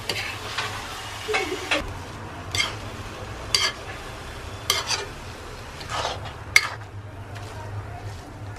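Metal spatula scraping and turning cabbage-and-onion momo filling in a black kadai, in repeated irregular strokes about one a second. The filling sizzles as it fries underneath.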